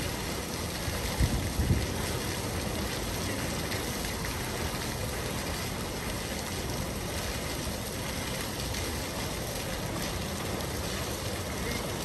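Fountain water falling and splashing steadily into the basin, a constant rushing hiss. Two brief low thumps come about a second and a half in.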